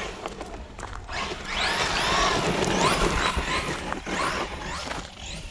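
Brushless electric motor of a Maverick Quantum+ Flux radio-controlled monster truck whining as it speeds up and slows down, loudest in the middle.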